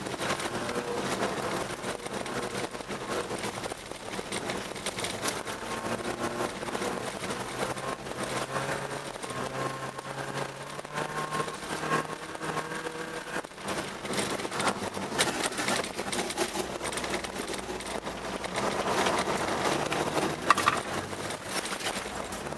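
Car engine heard from inside the cabin, its pitch rising and falling with the throttle, over the rush of tyres on packed snow and ice. Near the end the noise grows louder, with a sharp knock.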